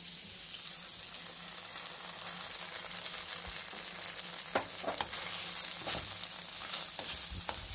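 Chicken, capsicum and onion sizzling steadily in a hot pan as cornflour-and-water slurry is poured in. From about halfway, a spatula stirs the mixture, with a few sharp knocks and scrapes against the pan.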